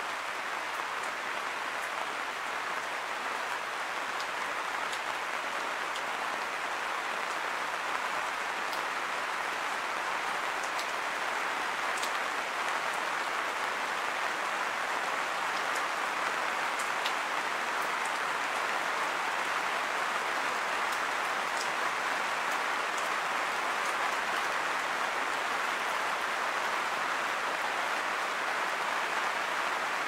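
Steady rain falling: an even hiss with scattered sharp drip ticks.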